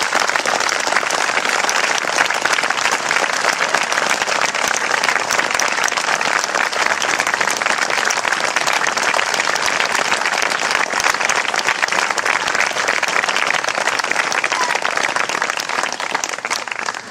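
Audience applauding, a dense, steady clapping that lasts throughout.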